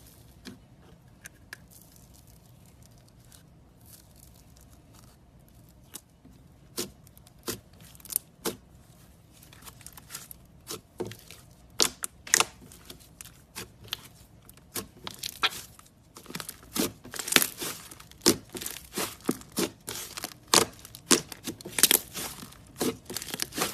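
Slime being worked, giving off sharp crackling pops and snaps: sparse at first, then coming thicker and louder from about halfway through.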